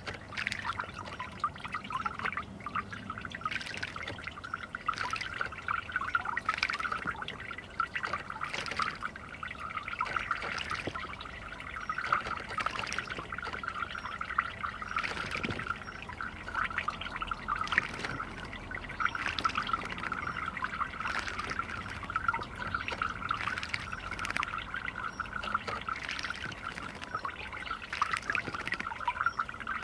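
A common starling bathing in a garden bird bath: a steady trickle of water with many short splashes scattered throughout as it dips and flicks water over itself with its wings.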